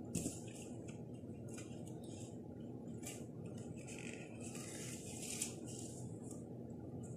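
Lacing cord being pulled through the punched holes of a card heart, making short, soft swishes and rustles of the card at irregular moments, over a steady low hum.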